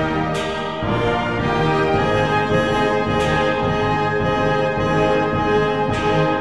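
Orchestral background music with brass holding sustained chords, and a bright crash about every three seconds.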